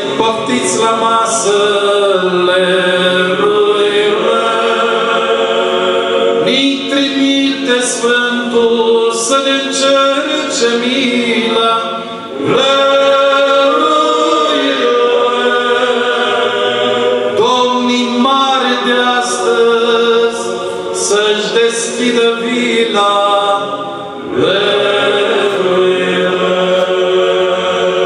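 Male choir of Orthodox priests singing a cappella, a Romanian Christmas carol (colind), in long held phrases with brief pauses about twelve and twenty-four seconds in.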